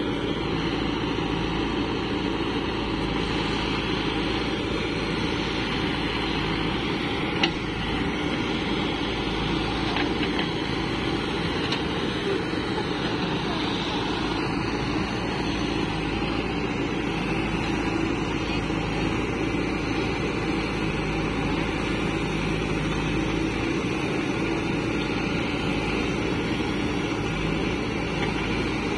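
Steady diesel engine noise from a Sonalika tractor idling close by, with a JCB backhoe loader working behind it. One sharp click about seven and a half seconds in.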